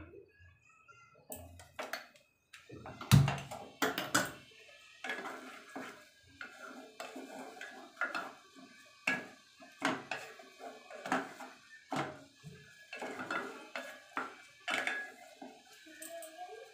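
Wooden spatula stirring and scraping a frying tomato-and-onion mixture in an aluminium pressure cooker, knocking against the pot's side and rim roughly once a second. A heavy thump comes about three seconds in.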